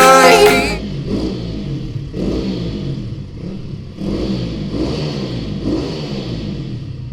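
Motocross bike engine revving up and down several times, with sharp throttle rises around two and four seconds in, fading away near the end; background music with singing stops about a second in.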